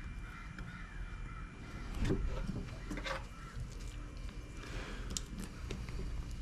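A grouper being filleted on a cutting table: a few short knife strokes and taps, with harsh bird calls in the background.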